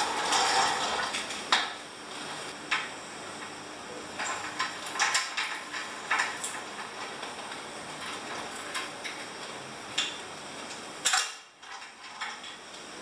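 Steel chain clinking and rattling against a steel frame: scattered light metallic clicks and knocks, with a louder clank about a second and a half in and a busier run of clinks around the middle.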